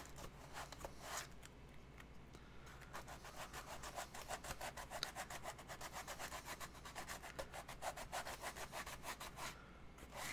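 Hand sanding of foam: quick back-and-forth scraping strokes, several a second, roughing away the foam. The strokes stop shortly before the end.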